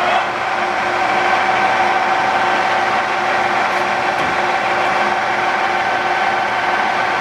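Lansing Model G 16" x 40" engine lathe running at 750 RPM, its headstock gearing giving a steady whine. The pitch finishes rising as the spindle comes up to speed just after the start, then holds level.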